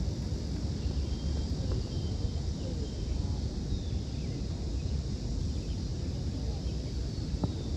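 Outdoor background noise: a steady low rumble with an even hiss over it and no clear nearby voices.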